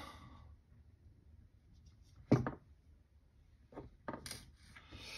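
A few short clicks and knocks from steel jewelry pliers and a fine chain being handled on a hard work surface, the sharpest about two seconds in.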